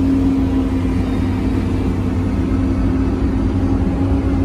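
Diesel engine of a John Deere logging machine running steadily, heard from inside its cab, with a constant hum over a low rumble.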